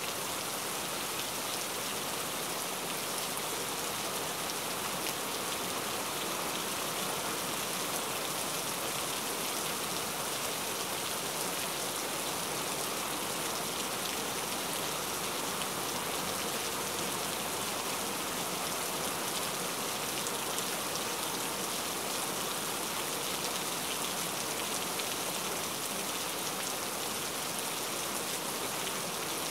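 Heavy rain falling steadily, a dense even hiss of countless drops on a surface.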